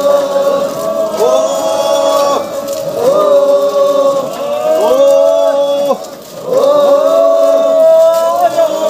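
A group of marchers chanting together in unison, long held calls that each rise into a sustained note and fall away, repeated every couple of seconds.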